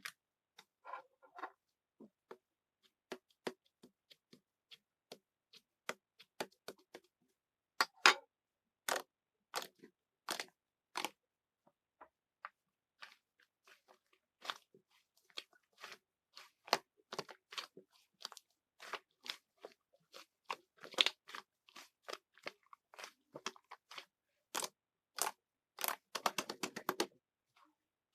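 A run of short, sharp crunchy clicks and crackles at an irregular pace, coming faster and closer together toward the end.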